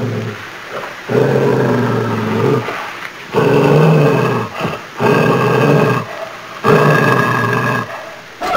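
Wolf growling in four long, rough snarls, each about a second long, with short pauses between.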